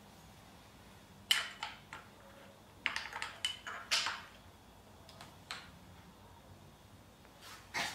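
Plastic parts of a cordless line trimmer being handled and fitted together: scattered short clicks and rustles in a few clusters, with quiet gaps between them.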